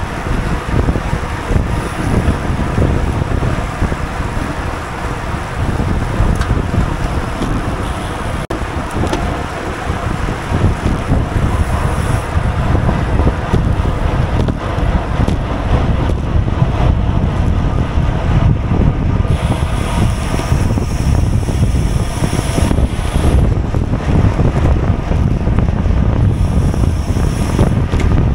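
Wind buffeting the microphone of a GoPro carried on a racing bicycle at speed: a steady, loud rumbling rush that grows a little louder about halfway through.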